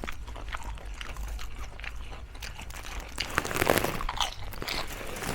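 Close-up crunching and chewing of crisp food: a run of irregular crackly bites, louder for a moment about three and a half seconds in.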